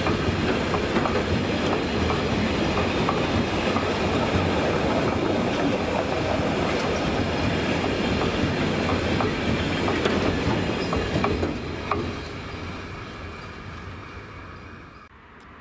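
Freight train of enclosed double-deck car-transport wagons rolling past close by: a steady rumble of wheels on the rails, with scattered clicks at the rail joints. About twelve seconds in the end of the train passes and the sound fades away.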